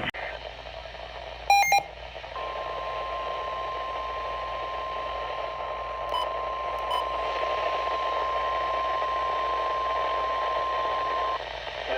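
NOAA Weather Radio alert: a short burst of electronic data tones about a second and a half in, then the single steady warning alarm tone (1050 Hz), lasting about nine seconds over radio static before cutting off. It signals the start of a new weather warning.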